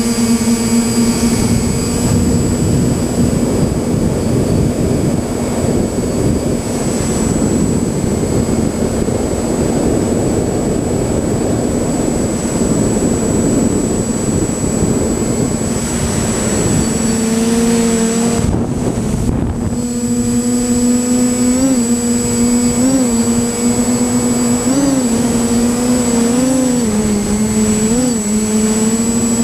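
A camera drone's electric motors and propellers buzzing at a steady pitch, heard from on board, with a rush of wind over the microphone through the first half. In the second half the buzz comes through clearly and jumps briefly up in pitch about six times.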